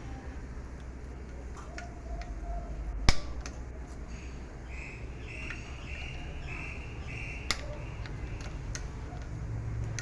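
Scattered clicks and knocks of hand work on a household water pump motor, freeing its stuck built-in cooling fan, the loudest knock about three seconds in. A bird calls a run of short repeated notes in the background midway through.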